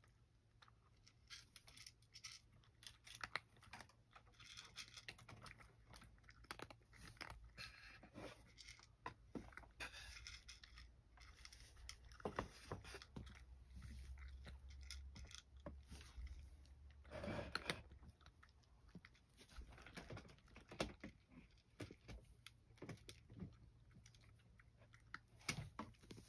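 A cat eating dry kibble: faint, irregular crunching and chewing, with a few louder crunches now and then. A low steady hum runs underneath.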